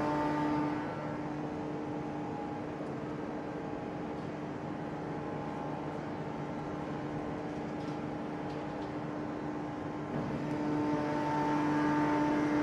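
Steady industrial machine hum over a noisy background, with a droning tone that fades about a second in and returns about ten seconds in.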